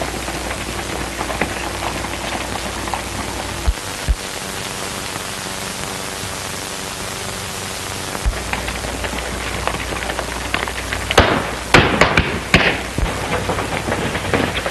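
Steady hiss of an early sound-film soundtrack with a few faint knocks. About eleven seconds in comes a rapid volley of several gunshots over about two seconds.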